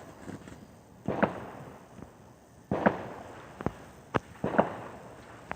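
Small fireworks popping: about half a dozen sharp bangs at uneven intervals, each with a short fading tail.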